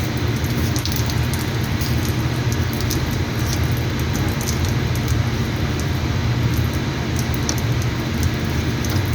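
Steady low rumbling noise with a hiss above it and scattered faint light clicks.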